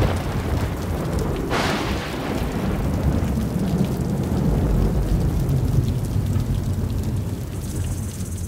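A steady, deep rumbling noise with no clear tone, with a brief brighter hiss about a second and a half in, slowly easing off toward the end.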